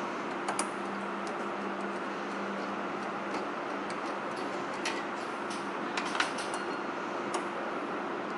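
A socket wrench working the bolts on a car's A/C receiver drier: a few light, sharp metallic clicks and taps at irregular moments, a small cluster of them about six seconds in, over a steady low hum.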